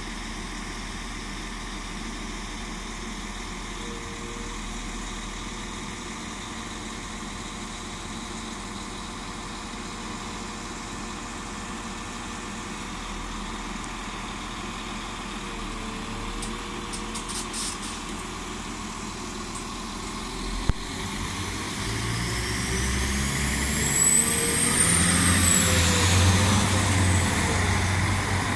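Northern Class 195 diesel multiple unit idling steadily at the platform. About twenty seconds in, its engines rev up and it pulls away, growing louder, with a high whine that rises and then falls in pitch near the end.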